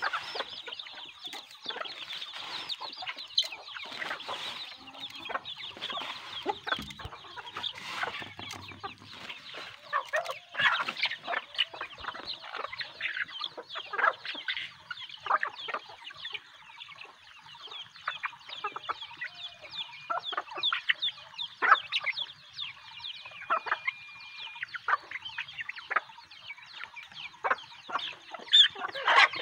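A flock of desi chickens clucking and chirping, many short overlapping calls running together in a continuous chatter.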